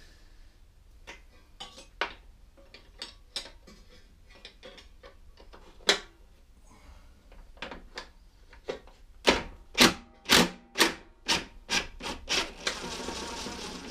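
Light clicks and knocks of tools on a steel mower deck, then a quick run of about eight louder knocks. Near the end a DeWalt cordless impact driver runs steadily, backing out the bolt that holds the engine to the deck.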